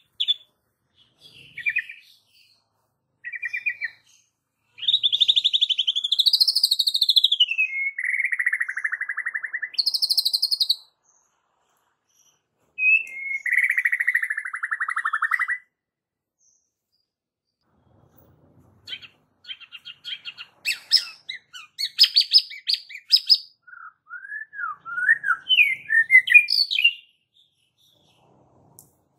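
White-rumped shama singing in phrases separated by pauses: long buzzy phrases that rise and fall in pitch, then near the end a run of rapid sharp notes and short whistles. It is a calm but sharp song of the kind played as a lure to stir other shamas into singing.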